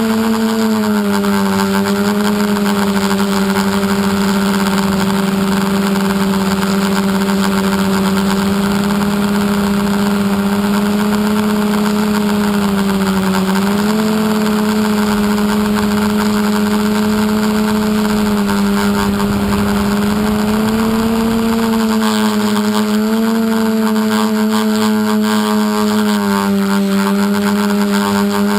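Electric motors and propellers of an FPV multirotor drone, heard through its onboard camera: a steady buzzing hum whose pitch steps up and down a little several times as the throttle changes.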